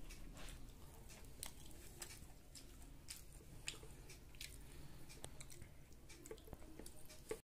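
Faint room tone with a low hum and scattered small clicks and ticks at an irregular pace.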